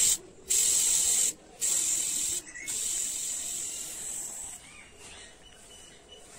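Airbrush spraying paint: a steady high hiss of air that stops briefly three times in the first two and a half seconds, then grows fainter and dies away.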